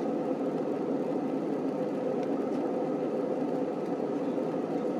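Steady, even drone of an airliner cabin in cruise flight: jet engine and airflow noise heard from inside the aircraft.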